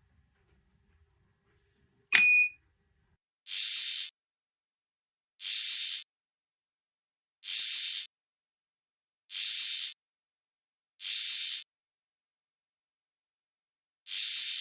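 A click with one short electronic beep about two seconds in. Then come six short bursts of hiss, each about half a second long and spaced roughly two seconds apart, with silence between them.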